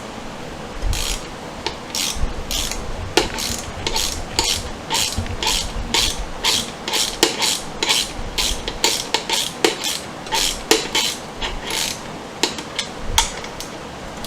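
Hand ratchet clicking in irregular runs, a few clicks a second, as self-tapping screws are driven in and tightened.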